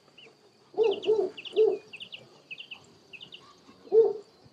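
German shepherd barking: three barks in quick succession about a second in and one more near the end, with birds chirping between them.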